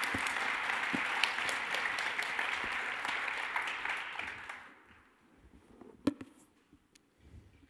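Audience applauding, which dies away about four to five seconds in, leaving a few scattered faint knocks.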